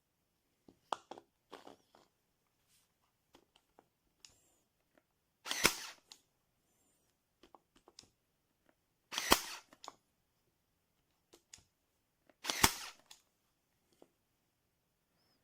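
Cordless 20V staple gun/brad nailer firing three times, about three and a half seconds apart. Each shot is a brief rising rush that ends in a sharp snap. Lighter clicks and handling knocks come between the shots.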